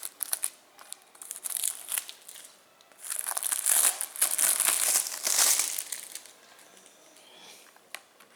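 Plastic shrink-wrap crinkling and tearing as it is pulled off a disc case, with short bursts early and a long loud stretch a few seconds in, dying down to faint rustles.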